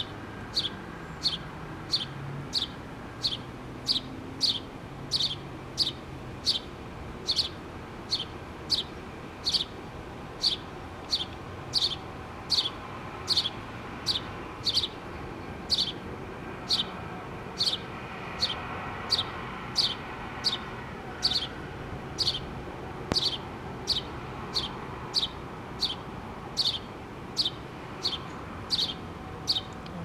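House sparrow chirping steadily, a short falling cheep repeated nearly twice a second.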